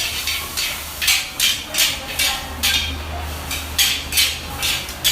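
Restaurant kitchen cooking sounds: metal utensils knocking and scraping against cookware in quick irregular strokes, about two to three a second, over a steady low hum.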